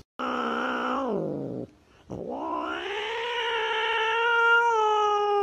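Tabby cat giving a defensive threat yowl with its back arched. There is a short yowl that drops in pitch about a second in, then a long drawn-out yowl from about two seconds in that holds steady.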